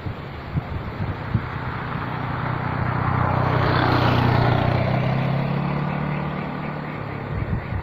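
A motor vehicle passing by: engine hum and road noise build up, are loudest about four seconds in, then fade away.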